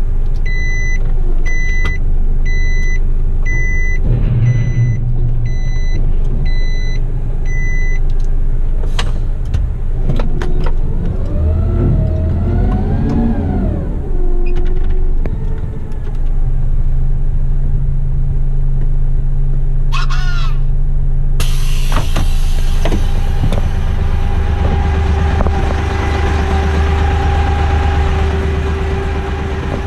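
Diesel engine of a front-lift waste truck running, with a run of reversing beeps through the first eight seconds. Around twelve to fifteen seconds in the engine revs rise and fall while the front-lift arms are worked. From about twenty-one seconds in the engine idles, heard with more hiss.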